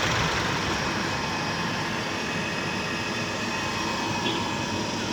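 Electric tahini grinding machine running steadily, its motor and mill giving a continuous whir with a few faint steady tones as it grinds sesame into hot tahini.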